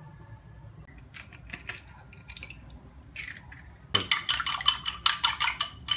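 Eggs being beaten in a ceramic bowl: a fast, rapid clatter of a utensil striking the bowl, several strokes a second, starting about two-thirds of the way in. Before it, a few scattered light clicks.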